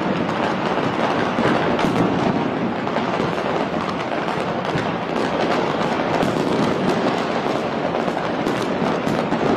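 Fireworks and firecrackers going off across a city, a dense continuous crackle with a few sharper cracks standing out.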